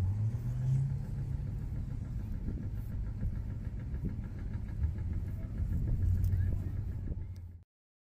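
A motor-vehicle engine running, heard as a steady low rumble that rises briefly in pitch about half a second in. The sound cuts off suddenly near the end.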